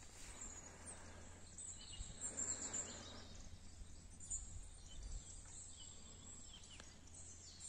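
Quiet pond-side ambience: a faint low rumble of wind on the microphone, with a few faint distant bird chirps.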